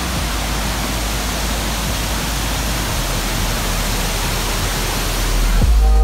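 Steady rush of a wide river waterfall, white water pouring over a rock ledge. Music comes in near the end.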